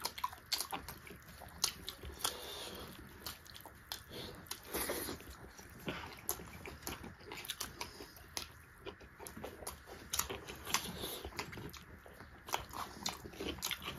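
Close-up chewing and biting of pork curry and rice eaten by hand: an irregular run of short, wet mouth clicks with no talking.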